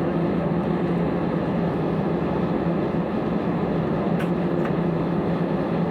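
Airliner cabin noise on the ground before takeoff: the engines run at low power with a steady hum through the cabin. Two faint clicks come a little after four seconds in.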